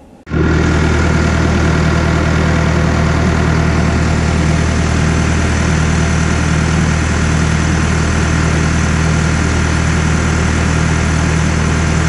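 Caterpillar 420E backhoe's diesel engine idling, a loud, steady, unchanging run.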